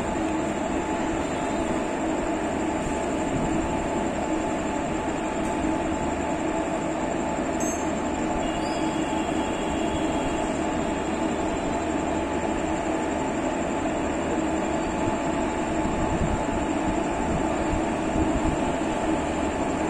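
WAP-4 electric locomotive hauling a passenger express out of the station at low speed: a steady rumble of the locomotive and coaches, with a constant hum and a thin high whine.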